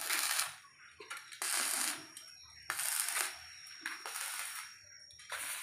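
Electric arc welding on steel: bursts of crackling sizzle, each about half a second long, starting and stopping every second or so, over a faint steady high whine.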